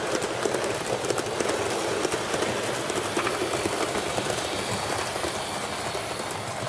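Model train running along the track: a steady rolling whir with a stream of quick light clicks over the rail joints.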